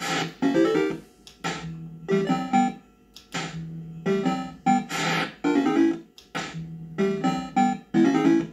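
Bell-Fruit Cash Explosion fruit machine playing its electronic jingles as the reels spin and stop. The pattern repeats: a sharp click, then a short run of quick notes, again and again.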